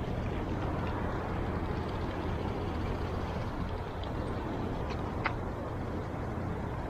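Steady outdoor background noise: an even low rumble and hiss with a constant low hum underneath, and a faint short chirp about five seconds in.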